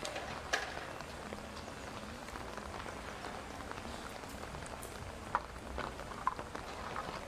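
Steady outdoor hiss with a few light knocks and clicks. One sharp knock comes about half a second in, and a few small clicks follow later, from work on the formwork of a block-and-rebar roof slab.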